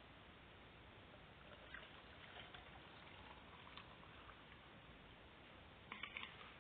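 Near silence: a steady hiss with faint scattered clicks and rustles, and a quick cluster of about four clicks near the end.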